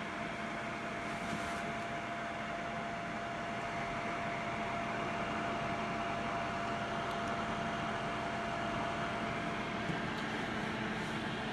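Heater running steadily with a blowing fan-like hiss and a faint steady whine that stops shortly before the end.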